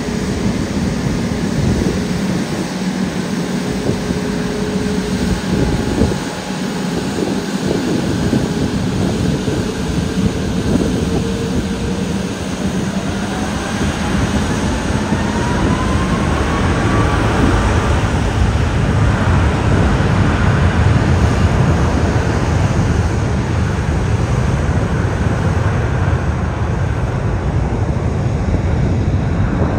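Jet airliner engines spooling up: a whine rises in pitch about halfway through, then a loud, steady engine noise with a deep rumble builds and holds.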